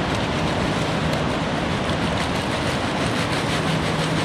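Tortilla chips poured from a bag into a pot, rattling faintly, over a loud steady rushing noise with a low hum.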